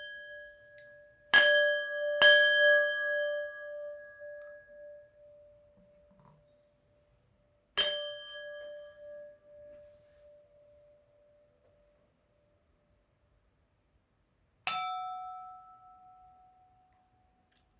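Crystal glasses struck four times, each ringing out with a clear bell-like tone that fades over a few seconds. The first three share one low note, two of them close together; the last strike, near the end, rings a higher note.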